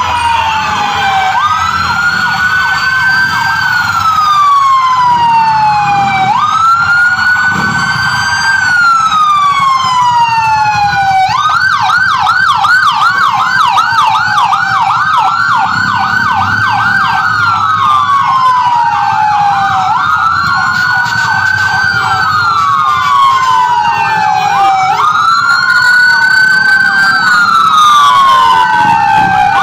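Electronic sirens of several ambulances driving past together, their wails rising and falling slowly and overlapping. For a few seconds about a third of the way in, one switches to a rapid yelp.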